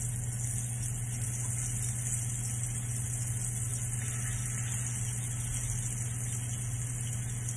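Marinated fish pieces shallow-frying in hot oil in a pan, a steady sizzle, over a steady low hum.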